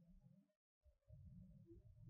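Near silence: a faint low rumble in a night-time field recording from a digital voice recorder, dropping out to dead silence about half a second in and returning just before the one-second mark.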